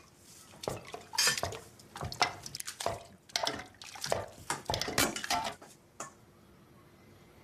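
Dishes and cutlery clattering: plates, pots and utensils knocked and set down in quick irregular strokes, stopping about six seconds in.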